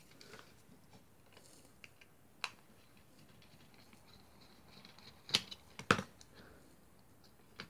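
Handling noise from the parts of an opened LED flashlight, its aluminium reflector, LED circuit board and a screwdriver, over a quiet room. There is a sharp click about two and a half seconds in and a cluster of louder clicks and knocks around five to six seconds in.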